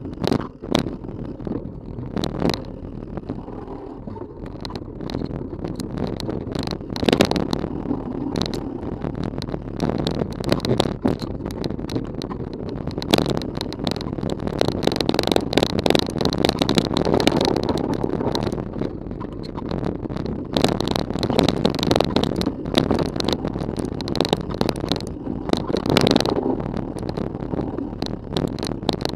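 Trail noise from a Rocky Mountain Element 930 mountain bike descending a dirt singletrack, picked up through a camera strapped to the bike: a continuous rumble of tyres rolling over dirt with frequent knocks and rattles as the bike runs over bumps.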